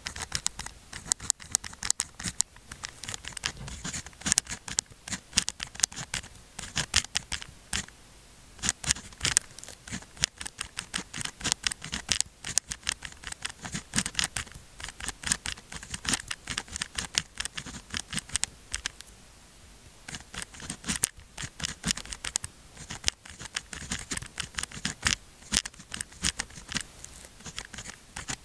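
A pen writing on sticky-note paper: quick scratchy strokes and taps of the tip in short runs, with a pause of a couple of seconds about two-thirds through.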